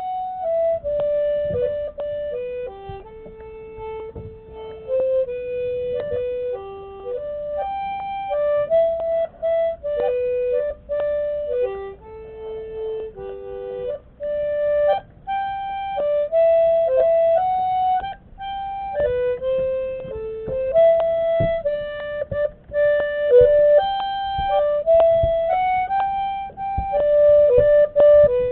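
A squeezebox playing a simple tune one held note at a time, the notes stepping up and down every half second or so.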